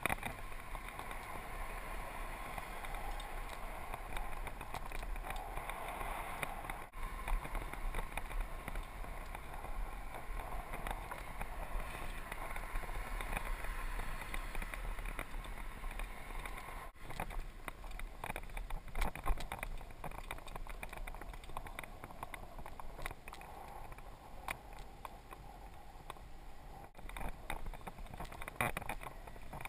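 Mongoose mountain bike riding over pavement, heard through a GoPro mounted on it: a steady rush of tyre and wind noise, with frequent small rattles and clicks from the bike over bumps.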